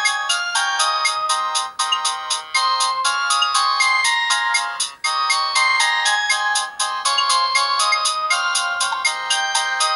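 Built-in ringtone of a Samsung GT-E1200Y phone: an electronic melody of several notes at once over a fast, even beat, thin with no bass. It has a short gap about five seconds in.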